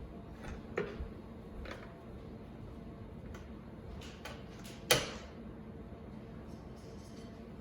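Scattered clicks and knocks of a rotary telephone being handled as someone tries to dial it, a few single clicks with the loudest knock about five seconds in.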